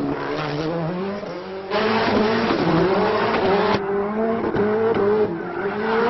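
Subaru Impreza rally car's turbocharged flat-four engine revving up and down while the car drifts, with tyres squealing on pavement. The sound jumps suddenly in level twice, where the shots are cut.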